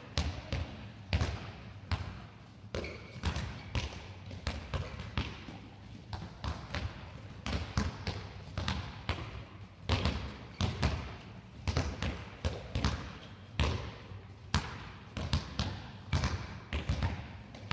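Handballs bouncing on a sports-hall floor and slapping into players' hands as they are passed and caught: many irregular knocks, several a second, echoing in the hall.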